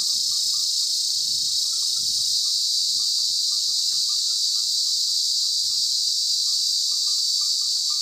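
Cicada singing: a continuous, steady, high-pitched buzz.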